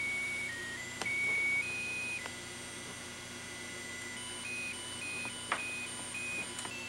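Musical plush clown toy playing a simple electronic tune: single thin beeping notes that step between a few pitches, shorter and quicker in the second half, with a few sharp clicks from the toy being handled.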